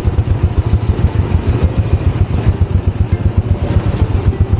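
Motorcycle engine idling with a steady, rapid low exhaust beat, left running so the chain turns while it is being lubricated.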